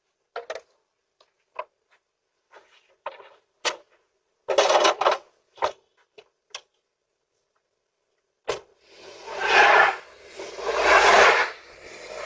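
Metal shovels being handled and scraped: a scatter of light knocks and clicks, then a sharp click about eight and a half seconds in and three long swells of rasping scrape.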